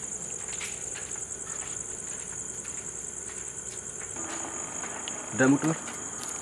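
Crickets chirping in a steady, fast trill. Near the end comes a brief, loud burst of a person's voice.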